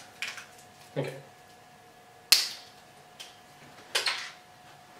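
Crinkles and sharp clicks of a peppermint candy cane being unwrapped from its plastic wrapper and handled, with one louder sharp snap about two seconds in.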